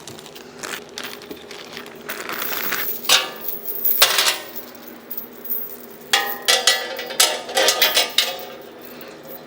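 Metal chains clinking and rattling against the steel welding cart as they are fitted, in irregular bursts, busiest about three seconds in and again from about six seconds in.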